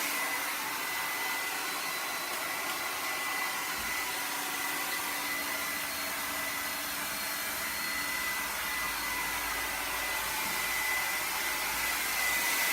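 Handheld blow dryer running steadily: a continuous rush of air with a thin high whine.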